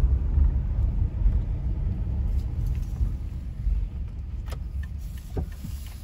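Steady low rumble of a Toyota HiAce camper van driving, with a few light clicks in the second half.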